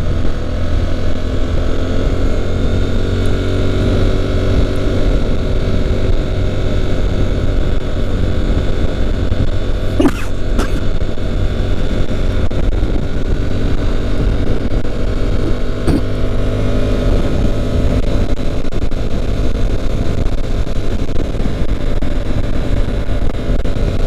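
Honda NC750X parallel-twin engine running steadily while riding, its pitch drifting slowly with small speed changes, under a heavy rumble of wind on the microphone. A couple of brief clicks about ten and sixteen seconds in.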